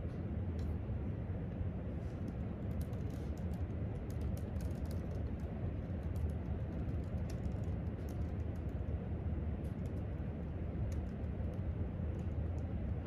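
Irregular clicking of typing on a laptop keyboard, in quick runs through most of the stretch, over a steady low room hum.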